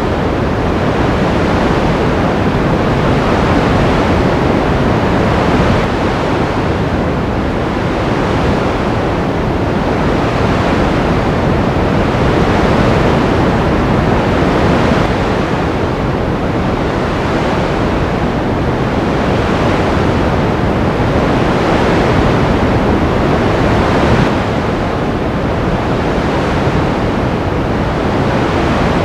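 Ocean surf: a continuous rushing wash of waves that swells and eases every few seconds.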